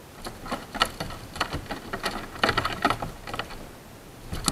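Quick, irregular run of clicks and taps aboard a plastic kayak, lasting about three seconds, with one more sharp click near the end.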